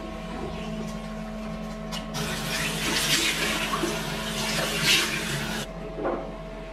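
Bathroom sink tap running into cupped hands for rinsing, a rush of water that starts about two seconds in and stops abruptly near the end, over a steady background hum. A short click follows as a mirrored cabinet door is opened.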